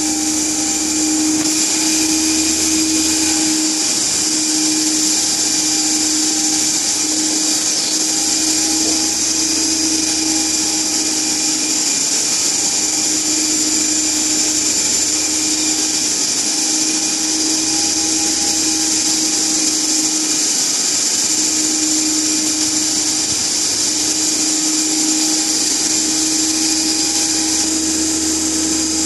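DC shunt motor and alternator set running at steady speed: an even machine hum with several steady tones under a strong high hiss.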